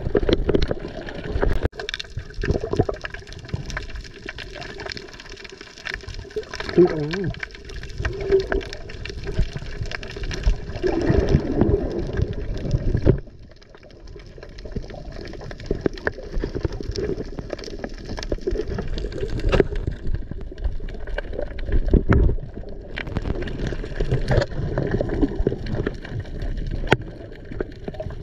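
Seawater splashing and sloshing, with many irregular splashes.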